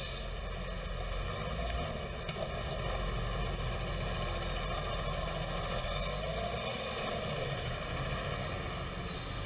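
Traffic noise: motor-vehicle engines running close by, a steady drone with hiss.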